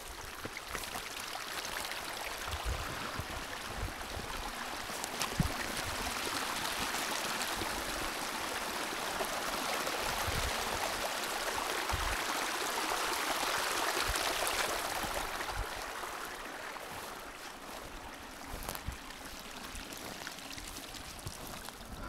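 A forest stream rushing, growing steadily louder to a peak past the middle and fading again toward the end, with a few short low thumps.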